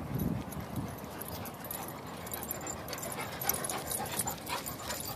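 Footsteps and dog paws crunching on a gravel ground, with irregular crunches that grow denser about halfway through, and a dog's sounds close to the microphone.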